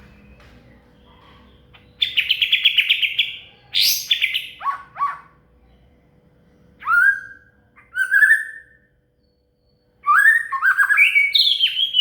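Murai batu (white-rumped shama) singing loud, varied whistled phrases: a fast trill about two seconds in, then falling notes, two single rising whistles, and near the end a quick run of notes climbing in pitch.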